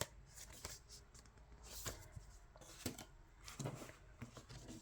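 Faint handling sounds of a CD album's packaging: scattered light clicks and soft rustles of card and plastic being moved about.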